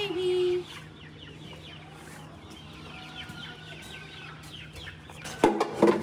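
Chickens clucking and chirping, with a loud short call at the start and two loud sharp clatters near the end.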